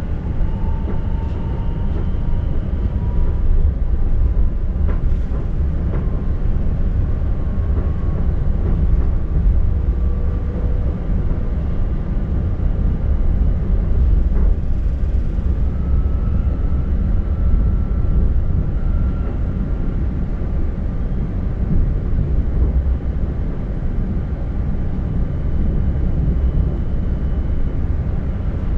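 Passenger train running between stations, heard from inside the carriage: a steady low rumble of wheels on rail, with faint whining tones that drift slightly in pitch and a few light clicks.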